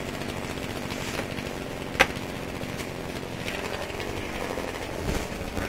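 Chainsaw engine idling steadily, with one sharp crack about two seconds in.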